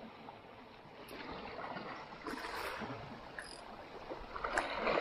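Small sea waves washing and splashing against shoreline rocks, swelling louder about two seconds in and again near the end.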